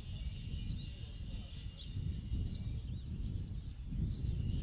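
Wind noise on the microphone, with a small bird calling over it in short, high, downward chirps about once a second.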